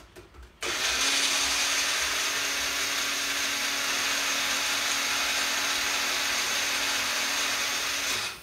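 Personal blender running steadily, blending blueberries and almond milk into a smoothie, with a steady motor hum under the whir. It starts about half a second in and stops just before the end.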